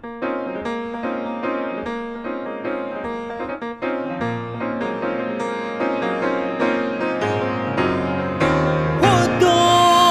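Instrumental passage of a fusion gugak band playing pansori-based music in a jazz style, with piano chords over low bass notes. About nine seconds in, a louder melody line with sliding pitch joins.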